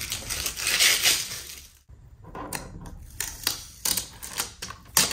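Thin plastic protective film crinkling as it is peeled and handled on a computer monitor. It stops abruptly about two seconds in, followed by scattered sharp clicks and crackles as hands handle the plastic back of the monitor.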